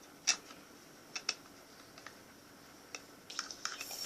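Light clicks and taps of small objects and utensils being handled while mixing slime ingredients: a few scattered ones, then a quick run of them near the end.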